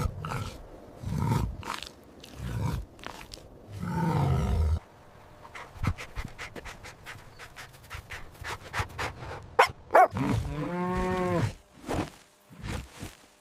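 Recorded animal sounds: a dog barks and growls in short low bursts, then a run of sharp clicks, then one long deep call near the end.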